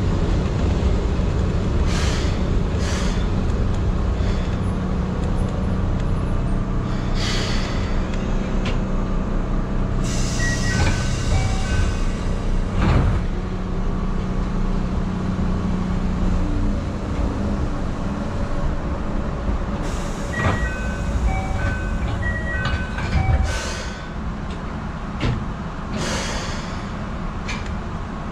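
Keihan Ishiyama-Sakamoto Line electric train heard from the driver's cab: a steady low running hum with a tone that fades out partway through. It is broken by several sharp knocks and hisses, and by two runs of short electronic beeps on two alternating pitches.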